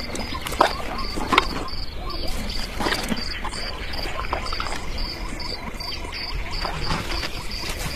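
Savanna ambience: an insect chirping in a steady rhythm, about three chirps a second, over a low steady rumble, with scattered short calls. A couple of short, sharp louder sounds come about a second in.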